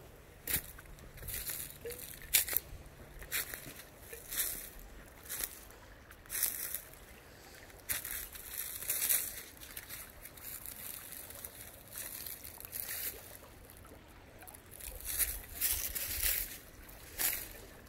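Footsteps crunching through dry leaf litter and twigs, about one step a second, with a quieter stretch in the middle and heavier steps near the end. A creek trickles faintly underneath.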